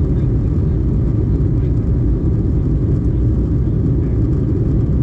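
Cabin noise of an Airbus A321neo airliner in flight, heard from a window seat: a steady, deep noise that does not change.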